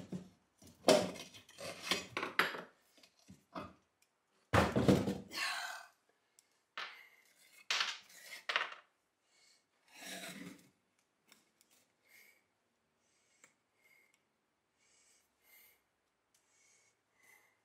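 A screwdriver prying and scraping at the cast iron stand's foot, with metal parts clattering on the old wooden base in several bursts over the first ten seconds. After that only small scattered taps as the board is handled.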